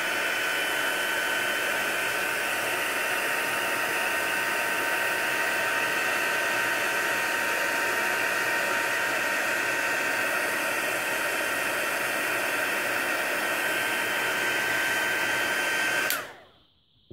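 Handheld craft heat gun running steadily, its fan blowing with a high, even whine, as it melts wax into the paper. It switches off suddenly near the end.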